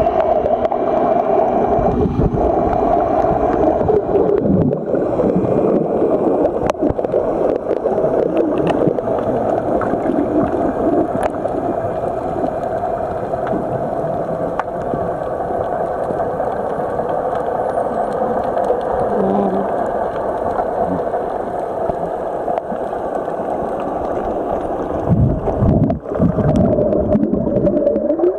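Underwater ambience picked up by a submerged camera: a steady hum with gurgling water and a few sharp clicks, and low swooping sounds about four seconds in and again near the end.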